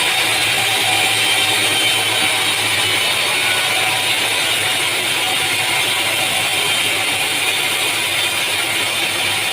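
Sawmill machinery running steadily: a continuous mechanical clatter and hiss over a low hum.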